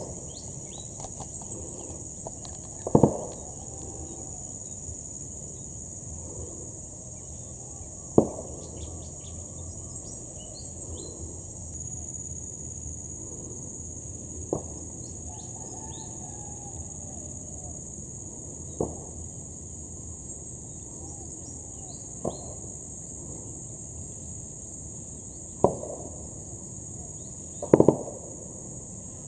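Steady high-pitched drone of insects, like crickets in a marsh, broken every few seconds by a sharp knock or thump, about seven in all.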